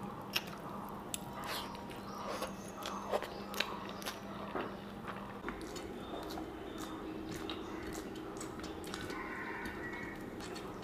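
Fingers mixing rice with fried greens on a steel plate: soft squishing with scattered small clicks against the metal, over a faint steady hum.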